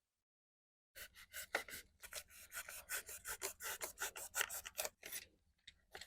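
Polystyrene fish-box foam being scraped and rubbed by hand in quick repeated strokes, about four or five a second, as it is shaped and smoothed. The strokes start about a second in and stop about five seconds in.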